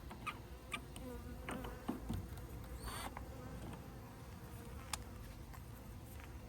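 Honeybee colony buzzing at the hive entrance, a steady drone, with a few light clicks through it.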